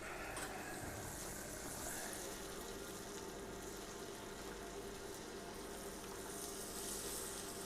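Spiced root vegetables frying in butter in a pan, a steady sizzle, with a faint steady hum underneath.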